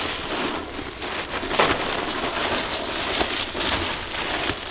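Whole shelled corn pouring from a bag onto dry leaves and bare ground: a steady stream of falling kernels, with a couple of louder moments, about a third of the way in and near the end.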